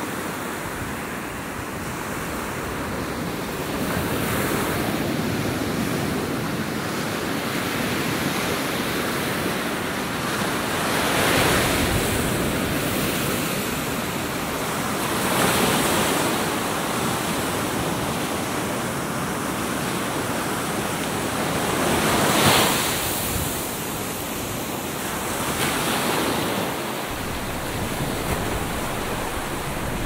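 Atlantic Ocean surf on a sandy beach: a constant wash of breaking waves, with a wave crashing louder about every four to seven seconds, the loudest about two-thirds of the way through.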